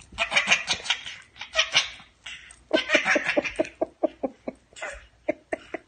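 A baby laughing hard while tugging a toy with a dog: loud squealing laughs at first, then a fast run of short laughs in the second half.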